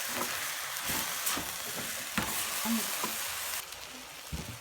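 Chopped vegetables and tomatoes sizzling in hot oil in a pan while being stirred, the utensil knocking against the pan several times. The sizzle quietens a little near the end.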